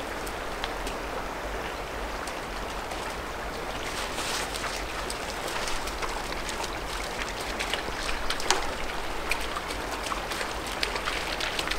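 Small mountain creek running over rocks, a steady rush of water with faint clicks now and then.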